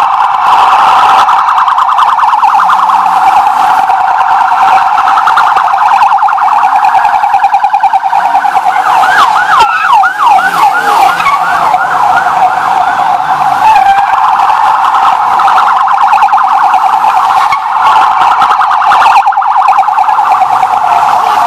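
Many police car sirens sounding at once, a dense fast warble throughout, with several rising and falling whoops around the middle.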